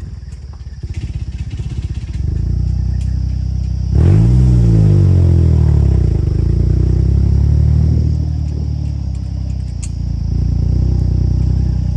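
Vehicle engine running as it drives along a dirt track. About four seconds in it revs up sharply and runs loud for a few seconds, then eases back.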